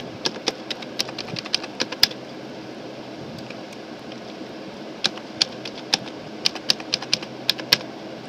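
Computer keyboard keys being typed in two quick runs of about a dozen keystrokes each, with a pause of about three seconds between them: a mobile number being keyed into a web form. A steady low hum runs underneath.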